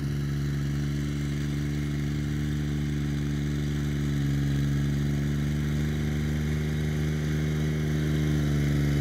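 Kubota BX subcompact tractor's three-cylinder diesel engine running steadily under load, driving a rear PTO rotary tiller through the soil. The engine grows slightly louder about halfway through.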